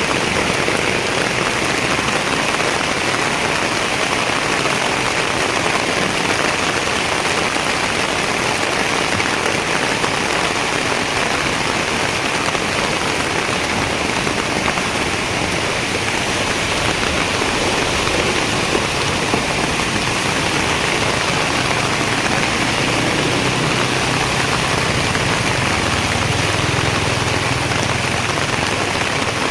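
Heavy rain falling steadily, an even hiss of drops on surfaces, with a faint low hum under it in the latter part.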